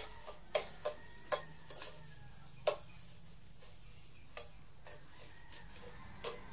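Wooden spatula stirring and scraping dry granulated sugar in a nonstick pan over low heat, the sugar not yet melted: a scattering of soft clicks and scrapes at irregular intervals, about seven in all.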